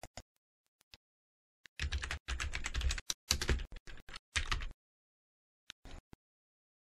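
Computer keyboard being typed on: a quick run of keystroke clicks from about two seconds in to nearly five seconds, with a few single key clicks near the start and near the end.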